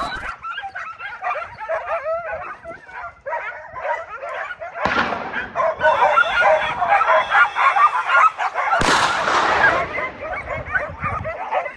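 A pack of hunting dogs yelping and baying at a wild boar they hold at bay, many short excited calls overlapping. A sudden burst of noise comes in about five seconds in, and a louder one just before nine seconds.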